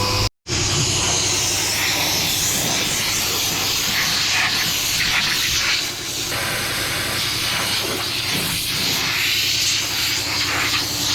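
Loud, steady hissing of an air or power tool working on a truck cab, with a brief dropout just after the start.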